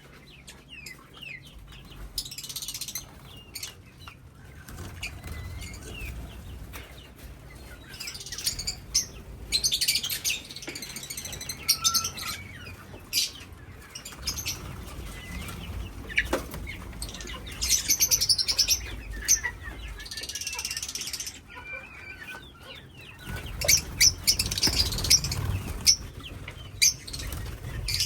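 Birds flapping their wings in repeated bursts, with scattered chirps and clucks from chickens and parrots.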